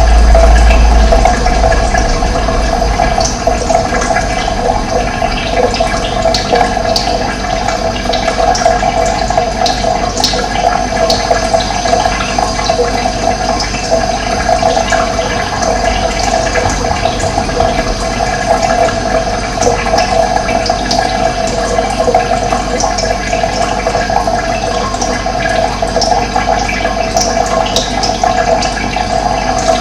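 Steady rushing of running water, a stream or small fall, with short high bird chirps scattered through it. A low rumble under the water drops away about a second in.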